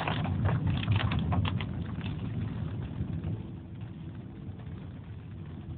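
Heavy rain striking the car's roof and windscreen, heard from inside a slowly moving car over a low engine and road rumble. The rattle of drops is dense for the first two seconds or so, then thins out and the whole sound gets quieter.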